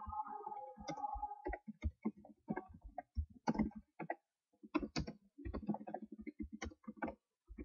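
Typing on a computer keyboard: irregular keystrokes, several a second, with short pauses between bursts.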